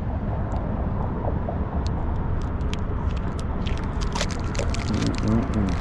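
Thin clear plastic bag crinkling in a run of quick crackles as it is pulled off a new wheel center cap by hand. A steady low rumble runs underneath.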